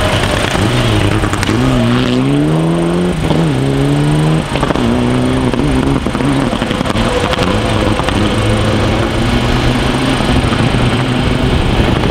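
Mitsubishi Lancer Evolution IX rally car's turbocharged four-cylinder engine at full throttle, its pitch climbing and then dropping sharply at each upshift, several times in the first half. After that it holds at steadier revs.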